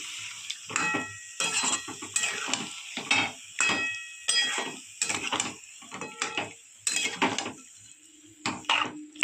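Metal spatula knocking and scraping against a metal cooking pan while chicken is stirred in, in repeated clanks that ring briefly, about one or two a second.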